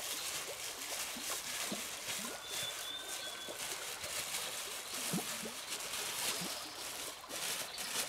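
Steady rain with water trickling and dripping, many short drips throughout.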